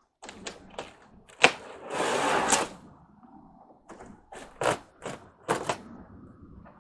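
A run of sharp clicks and knocks from hard parts being handled, with the loudest knock about a second and a half in, followed by about half a second of scraping rustle, then several more knocks.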